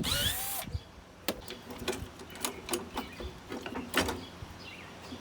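Hand tools working on the metal parts of a walk-behind mower: a short scraping, squeaky rasp at the start, then scattered sharp clicks and clinks of metal on metal.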